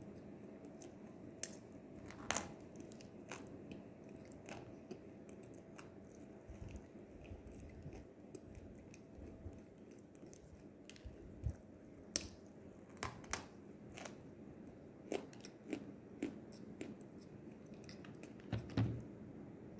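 A person biting and chewing a dry lump of edible clay (nzu), with irregular crisp cracks. The loudest crack comes about two seconds in, and a cluster follows in the second half, the strongest near the end.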